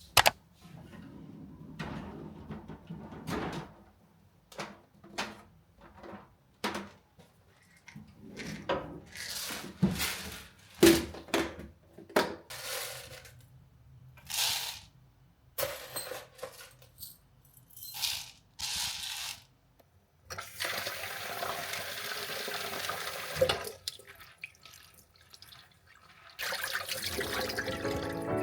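Kitchen sink tap water running in short spurts, with knocks and clinks in between. About two thirds of the way through, the water runs steadily for about three seconds.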